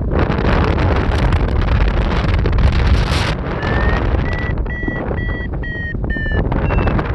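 Strong wind buffeting the microphone. Midway comes a short run of evenly spaced electronic beeps at one high pitch, about two a second, typical of a paraglider's variometer signalling lift.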